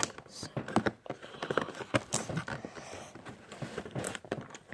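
Cardboard box being handled and pulled at to get it open: irregular knocks, taps and scraping.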